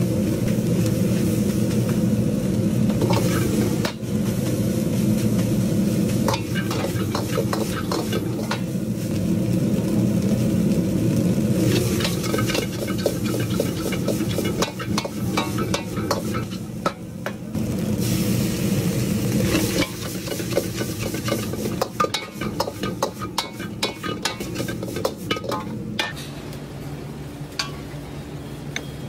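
Fried rice sizzling in a wok over a steady low-humming wok burner, with a metal ladle repeatedly scraping and knocking against the wok. The hum drops a few seconds before the end.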